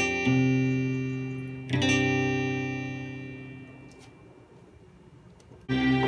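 Classical-guitar voice of an electronic keyboard played through a Peavey KB1 keyboard amplifier: two plucked chords, one just after the start and one just under two seconds in, each ringing out and fading slowly. Near the end a new, fuller sound starts abruptly.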